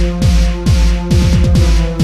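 Electronic body music (EBM) track: a steady electronic kick drum with sharp downward-pitched thumps under held synthesizer notes, with no vocals.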